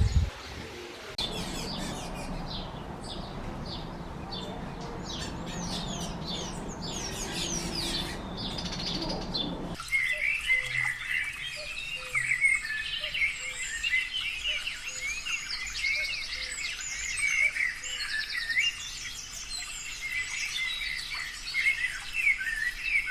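Several small wild birds chirping and calling, at first over a steady rushing background noise; after a cut about ten seconds in, a denser chorus of high chirps.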